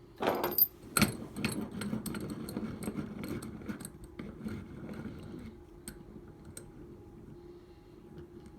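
Metal clinks and rattles of a Master Lock hasp and staple being handled and set into a vise: a clatter at the start, a sharp knock about a second in, then a few seconds of small metallic clicks that thin out.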